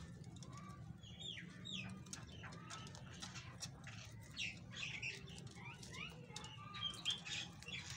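Rabbits tearing at and chewing a bunch of leafy greens, with leaves rustling and crunching in quick irregular clicks, while small birds chirp in short falling notes now and then, over a steady low hum.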